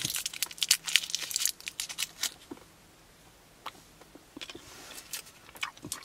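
Cough drop wrapper crinkling and tearing as it is unwrapped by hand: a run of crackles for about the first two seconds, a short lull, then more crinkling near the end.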